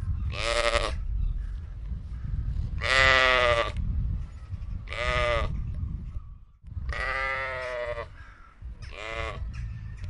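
Sheep bleating five times in separate calls, the loudest about three seconds in and the longest, about a second, near seven seconds, over a low steady rumble.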